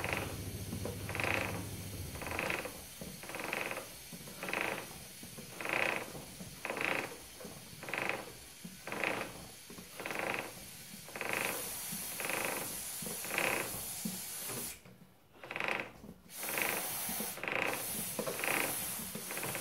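Rear wheel of a 1998 Yamaha XTZ660 Ténéré turned round by hand, with a short rub repeating about once a second as it goes round: the rear brake is a bit tight, which the mechanic puts down to a binding rear caliper. Aerosol chain lube hisses onto the chain in bursts over the second half.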